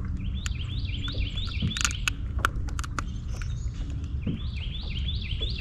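A bird calling a quick run of short rising notes, about four a second, which stops and starts again near the end. Under it are a steady low rumble and scattered sharp clicks.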